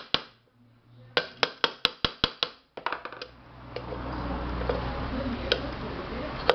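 Quick run of sharp metal taps, about nine in a second and a half, from a chisel tapped against the rim of a pressure cooker to open up its gasket channel; a few fainter taps follow, then a steady low hum.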